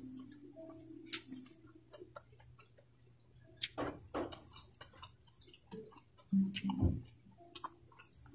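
Close-miked eating sounds: chewing with small, irregular wet clicks and lip smacks, with a few louder knocks about four and about seven seconds in.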